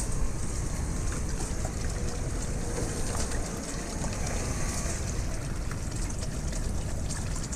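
Water trickling steadily into a small garden pond.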